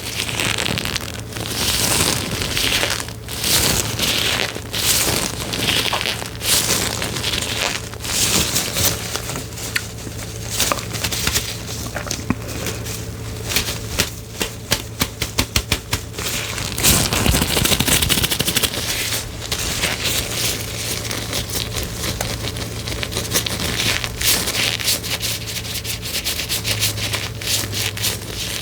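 Close-up crackling and rubbing as an object is handled right at the microphone, with scattered sharp clicks and a run of fast, even clicks about halfway through.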